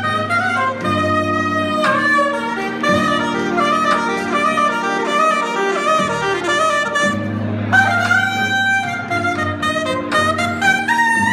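Saxophone played live in quick, jazzy melodic runs with a few held notes, over an accompaniment of sustained low bass notes that change every second or two.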